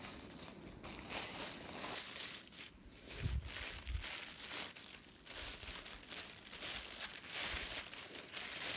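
Crinkly pink wrapping being handled and pulled open by hand, rustling and crinkling in irregular bursts, with a couple of dull thumps about three to four seconds in.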